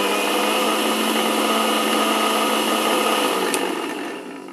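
Electric mixer-grinder with a steel jar running at full speed, blending a powdered drink mix with water. About three and a half seconds in it is switched off with a click and the motor winds down.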